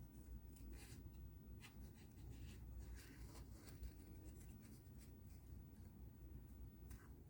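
Faint, irregular snips of small scissors cutting paper.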